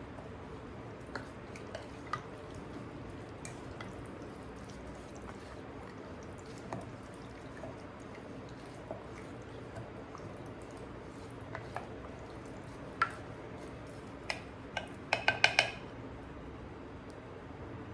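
Kitchenware being handled: scattered small taps and clicks over a steady low background hum, then a quick run of four or five ringing clinks of hard ware about fifteen seconds in.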